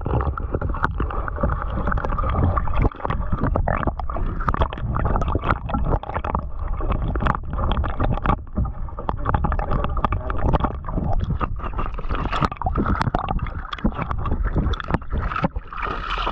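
Muffled water churning and gurgling heard through a submerged action camera, with many irregular knocks of water against the housing. Near the end the sound turns bright as the camera comes up out of the water.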